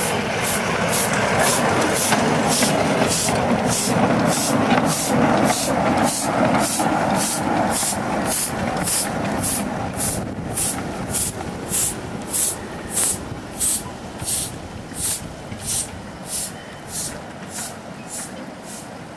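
Ride-on live steam locomotive chuffing steadily at about two exhaust beats a second as it hauls a train of riders past, with the cars rumbling on the track. The rumble is loudest in the first half and fades as the train moves away, leaving the exhaust beats.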